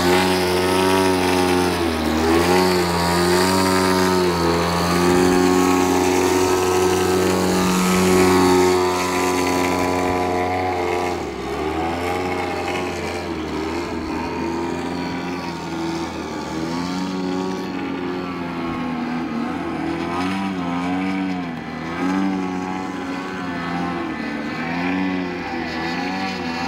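DLE 50 cc single-cylinder two-stroke petrol engine of a radio-controlled Yak 54 aerobatic plane running, its pitch rising and falling again and again as the throttle is worked. It is a little louder over the first ten seconds.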